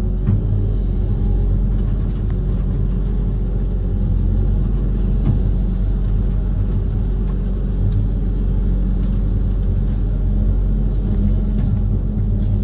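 Amphibious excavator's diesel engine running steadily with a low, even rumble.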